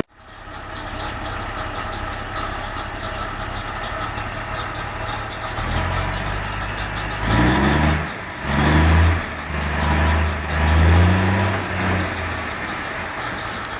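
A vehicle engine running, revved up in several short bursts with rising pitch in the second half.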